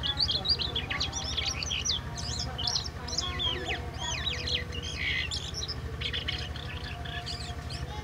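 Caged jalak kapas (red-billed starling) singing a continuous, varied run of quick chirps and whistles, many of them falling in pitch. The bird is a fresh market bird still at the chattering 'ngeriwik' stage of song.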